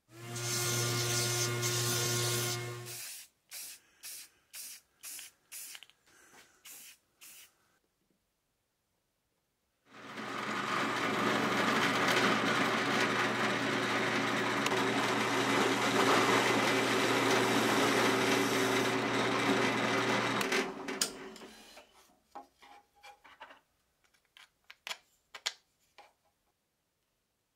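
Benchtop drill press motor running while drilling holes in a thin wooden pointer strip. A short run near the start is followed by a string of sharp clicks. A second, longer run of about ten seconds starts about ten seconds in, and more scattered clicks and knocks come after it.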